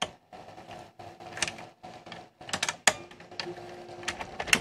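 National VHS VCR tape mechanism running with a cassette loaded: a steady motor hum with irregular clicks and clacks of its gears and levers, a louder clack near the end. The mechanism has a tape-path alignment fault that is creasing the top edge of the tape.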